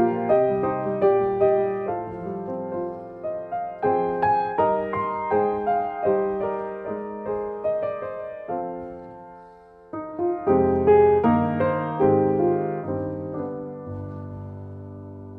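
Background piano music, notes struck and left to ring in slow chords; the phrase fades out about nine seconds in and a new one starts a moment later.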